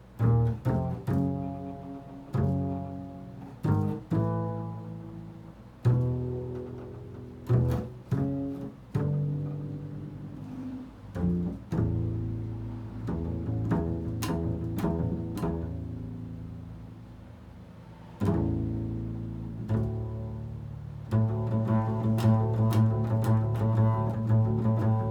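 Improvised solo on a low-pitched string instrument. Single plucked notes with sharp attacks, some left to ring for several seconds, give way about 21 seconds in to a fast run of repeated notes.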